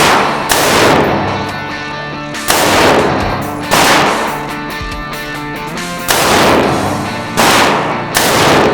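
Gunshots over background music: about eight loud single shots at uneven intervals, each ringing out with a long echo, while music with sustained notes plays underneath.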